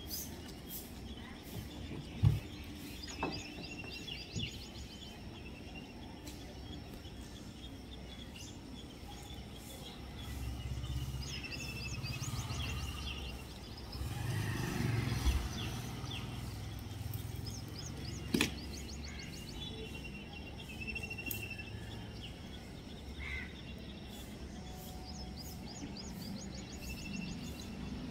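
Outdoor ambience of small birds chirping and trilling over and over, with a low rumble swelling from about ten to sixteen seconds in. A few sharp knocks stand out, the loudest about two seconds in and another a little past the middle.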